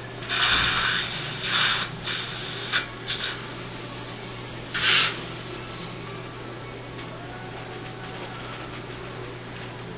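Several short bursts of hissing in the first half, the loudest near the start and about five seconds in, over a steady low equipment hum.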